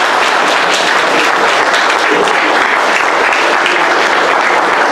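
Dense, steady applause from an audience clapping.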